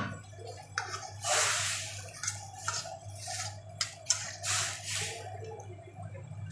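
Maggi noodles in bubbling water in a pan being stirred with a metal utensil: a run of splashing, scraping strokes against the pan over a steady low hum.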